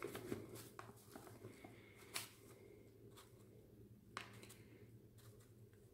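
Near silence with the faint patter of flour pouring from a bag into a stainless steel mixing bowl, and a few light crinkles of the flour bag.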